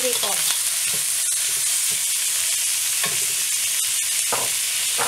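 Prawns, tofu and shallots sizzling steadily in hot oil in a wok while a metal spoon stirs them, with scattered clicks and scrapes of the spoon against the wok.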